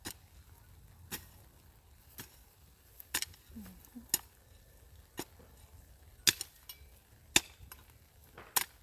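A digging tool chopping into soil, about one stroke a second, as earth is dug up and heaped into planting hills.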